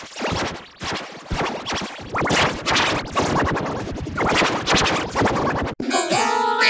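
Heavily edited electronic music with rapid, choppy scratch-like noise stutters. About six seconds in it cuts abruptly to a melody of stepped synthesizer tones.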